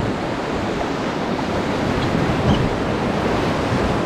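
River water rushing steadily around a raft: an even whitewater wash.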